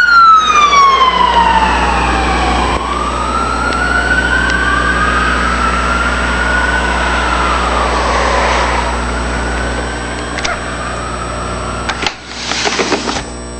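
A fire department ALS ambulance's electronic siren on a slow wail, rising and falling and fading as the unit passes and drives away. A steady low hum runs underneath, and a short rustling noise comes near the end.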